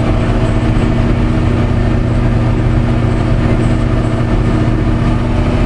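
Komatsu D375 bulldozer's diesel engine running steadily and hard under load, heard from inside the cab while push-loading a scraper.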